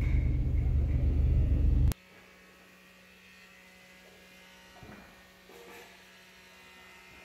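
A loud low rumble cuts off abruptly about two seconds in. It leaves a faint, steady electrical hum with a couple of soft, brief noises.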